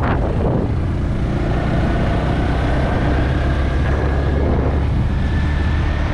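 Honda Grom's small single-cylinder four-stroke engine running at a steady, even pitch while the motorcycle cruises along the street.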